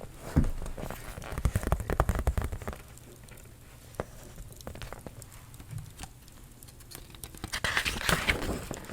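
Close-miked ASMR handling sounds: quick soft taps and clicks for the first few seconds, a quieter stretch with only the odd tick, then a crinkly rustle near the end.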